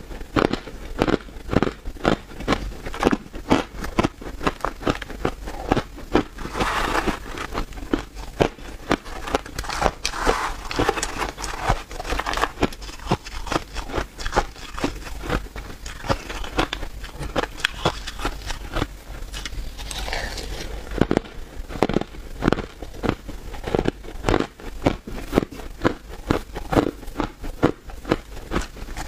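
Crushed and shaved ice being chewed close to the microphone: a steady run of crisp crunches and crackles, a few each second.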